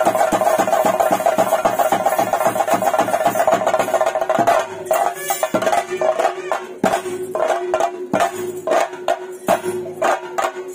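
Chenda drums and cymbals of a theyyam percussion ensemble playing a fast, dense rhythm. About four and a half seconds in, the beat opens into separate, spaced strokes over a steady held tone.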